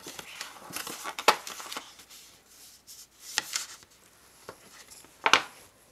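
Stiff white cardstock being folded along its score lines and pressed flat, with a string of short dry rubbing and sliding strokes of paper and a bone folder on a wooden tabletop; the sharpest strokes come about a second in and near the end.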